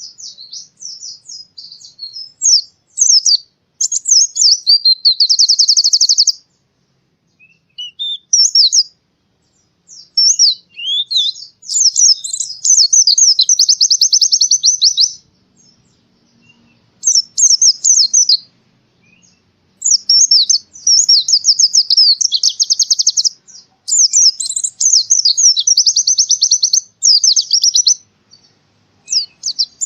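White-eye (pleci) singing: bursts of rapid, high chattering twitters and fast trills, in phrases of one to five seconds with short pauses between them.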